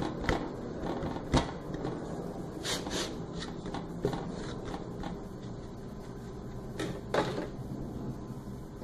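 Hands rolling a log of soft dough on a bamboo cutting board: soft rubbing with several light knocks of hands and board against the wood.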